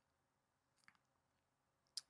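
Near silence: room tone in a small room, with a faint click about a second in and a short sharp click just before the end.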